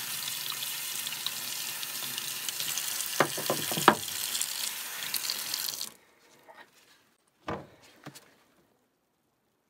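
Tap water running into a sink over a steel chisel being rinsed, with a few sharp knocks about three to four seconds in as the chisel is laid down in the sink. The water cuts off suddenly about six seconds in, followed by a single knock.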